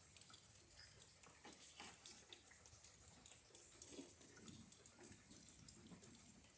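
Faint rain patter and dripping water during a thunderstorm, with a few faint low sounds near the middle and end.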